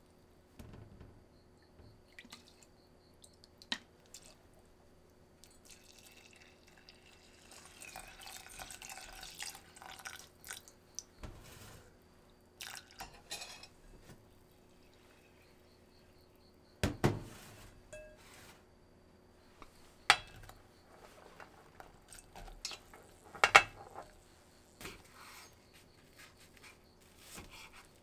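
Kitchen sounds at a rice cooker's inner pot: a metal measuring spoon stirring wet rice, then liquid poured in for several seconds. Later come a few sharp knocks of the pot and its contents.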